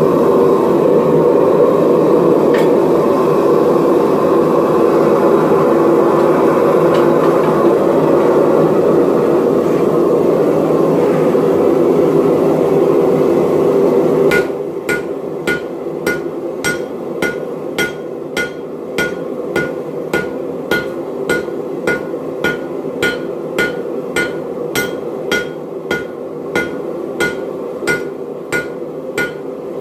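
A gas forge's burner running with a loud, steady rush. About fourteen seconds in, this gives way to a hand hammer striking a hot Damascus steel billet on an anvil, about one and a half blows a second, each with a short metallic ring, setting the forge weld.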